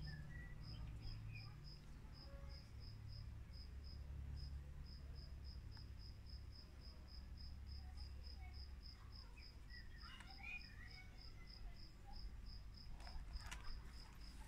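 A cricket chirping in short even pulses, about four a second, over a faint low rumble.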